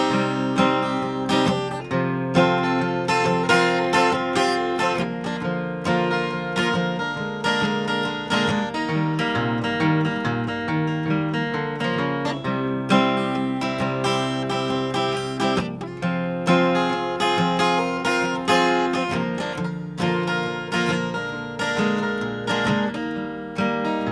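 Acoustic guitar strummed in a steady rhythm, playing an instrumental break with no vocals.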